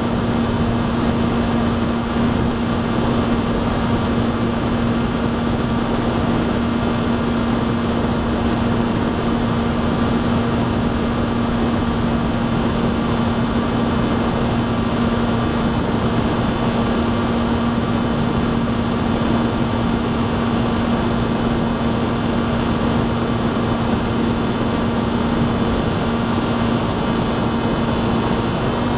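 Electric motor and propeller of an FPV model aircraft running steadily in flight, a constant hum with airflow noise heard from on board. A faint high beep repeats about every two seconds.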